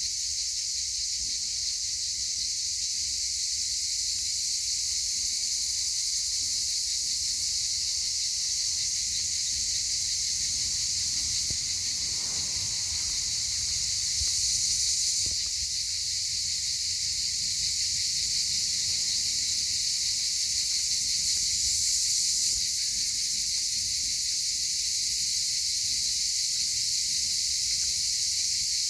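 Loud, steady chorus of cicadas buzzing in summer heat, swelling slightly twice along the way.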